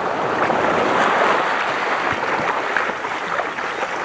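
Small waves washing up a sandy beach in the shallows: a steady surf hiss that swells slightly and eases off near the end.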